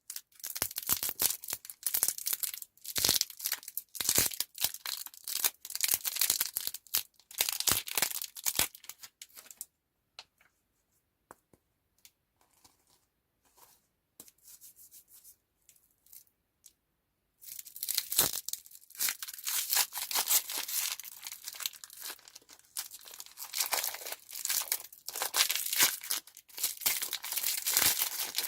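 Candy wrappers being torn open and crinkled by hand in short, rapid bursts. About ten seconds in it goes almost quiet apart from a few faint ticks, and dense crinkling starts again a little past the middle.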